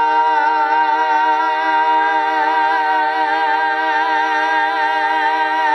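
Several voices, adults and children together, holding one long sung chord on the word "better" in a mock-dramatic ballad line. The note stays steady, and its vibrato widens toward the end.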